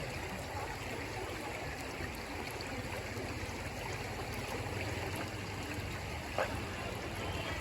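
River water running in a steady rushing flow, with one brief sharp tap or knock a little over six seconds in.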